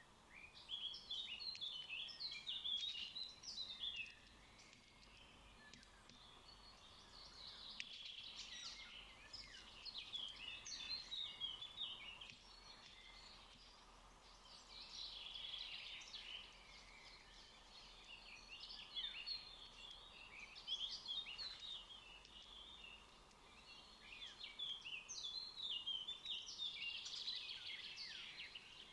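Magpies calling in about five bouts of rapid, high, clustered notes, with quieter pauses of a second or two between bouts.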